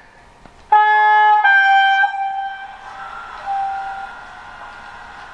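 Two-tone horn of a BR 216 diesel locomotive, played by an H0 model's sound decoder through its small loudspeaker: a short lower note about a second in, then a longer higher note that fades. A quieter steady sound carries on after it.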